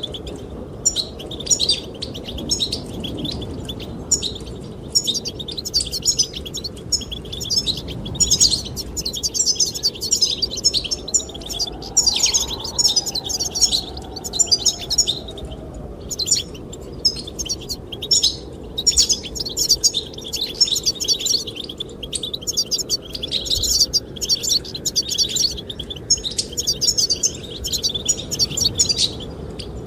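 Goldfinches singing and twittering continuously: fast runs of bright, high chirps and trills, over a steady low rush of wind.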